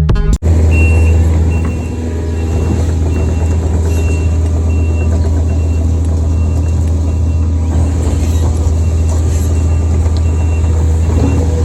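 Diesel engine of a piece of heavy equipment running steadily, with its travel or backup alarm beeping about twice a second while the machine moves; the beeping stops briefly about eight seconds in.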